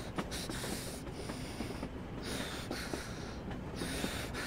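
Heavy, sniffing breaths from a man in distress, swelling and fading about once a second, over the steady rumble of a moving train carriage.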